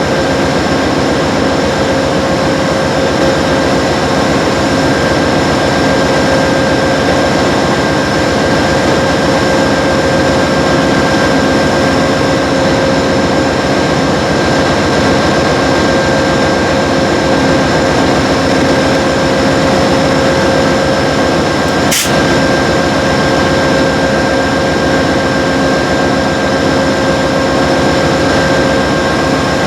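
GE P42DC diesel locomotive standing with its engine running at a steady speed, a constant loud drone with a steady whine over it. One sharp click about two-thirds of the way through.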